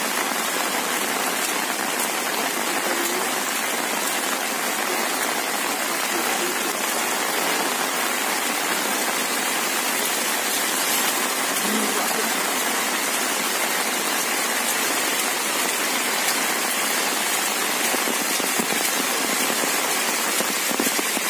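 Heavy rain pouring down steadily, a dense, even hiss that does not let up.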